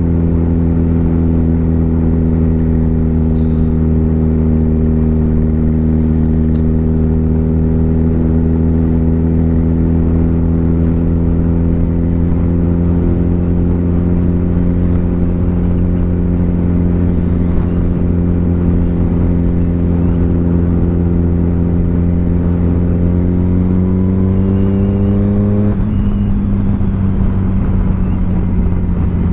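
Kawasaki ZX-10R's inline-four engine running at steady revs while the motorcycle is ridden. The revs climb a little, then drop abruptly about 26 seconds in.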